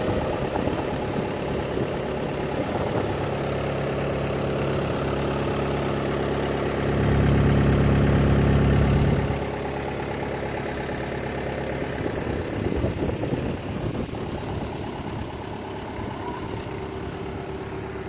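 Diesel engine of a Cat 262C Series 2 skid steer loader running steadily, swelling louder for about two seconds midway before settling back.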